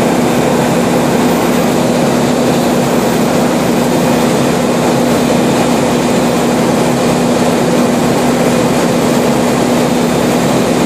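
Light aircraft's piston engine and propeller running steadily in flight, heard from inside the cockpit as a loud, even drone with a constant low hum and no change in pitch.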